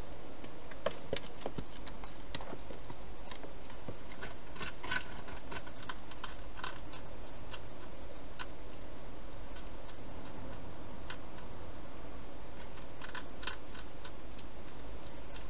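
Hedgehog eating from bowls inside a clear plastic feeding box: scattered sharp crunches and clicks, bunched in a few clusters, over a steady hiss.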